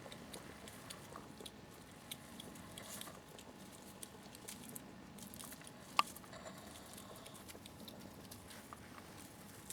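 Hedgehogs making faint, scattered clicking and rustling sounds, with one sharp click about six seconds in.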